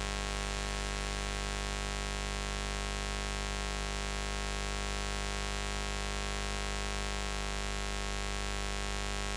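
Continuous buzz: a steady low hum with a dense stack of overtones reaching up into a high hiss, unchanging in pitch and level.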